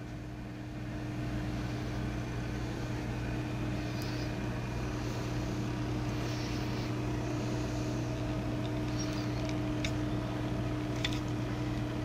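Anet ET4 3D printer running with a steady hum from its fans and motors, a little louder from about a second in, with a few faint ticks, as the extruder pushes filament through the hot nozzle to purge it.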